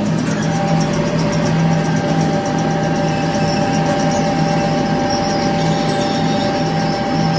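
CFS Koppens PRM 900 M flour-coating (breading) machine running, its wire-mesh conveyor belt moving: a steady mechanical hum with a constant higher whine over it.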